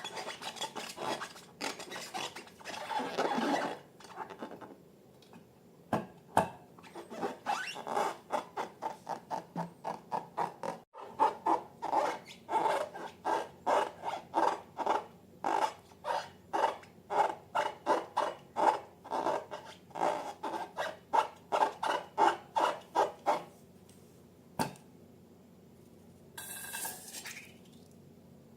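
Slime being stirred and worked: an even run of short strokes, about three a second, with a brief hiss near the end.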